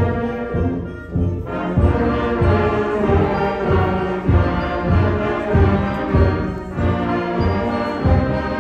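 High school concert band playing Christmas music: trumpets, trombones, sousaphone and woodwinds together over a steady, evenly spaced low beat.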